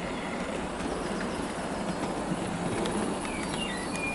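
Hornby Terrier OO gauge model locomotives running on the layout track, their mechanisms fairly quiet and steady.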